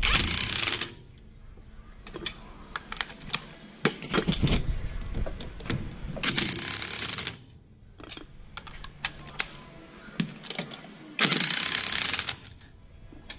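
Handheld power driver with a socket spinning lug nuts down onto a car wheel's studs in three short runs of about a second each, near the start, about six seconds in and about eleven seconds in. Scattered clicks and knocks of the nuts and socket being handled come between the runs.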